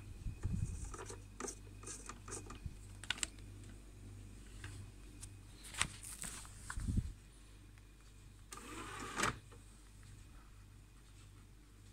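Clicks, knocks and rustles of hands on a DVD player's open disc tray and the disc in it, the loudest a dull knock about seven seconds in. Under them runs a low steady hum with a faint regular pulse.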